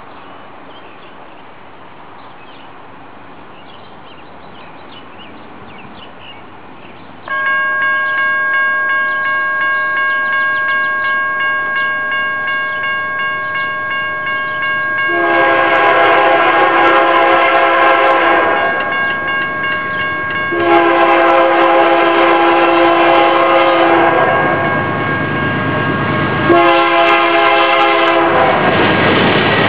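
A railroad crossing's warning bell starts ringing steadily about seven seconds in. Then the horn of a BNSF GE C44-9W locomotive approaching the crossing sounds three long blasts, each one loud.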